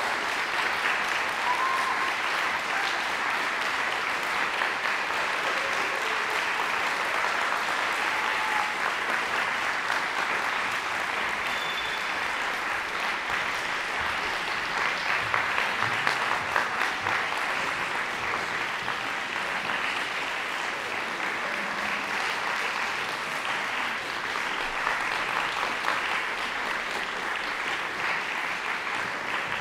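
Concert-hall audience applauding steadily, a dense even clapping.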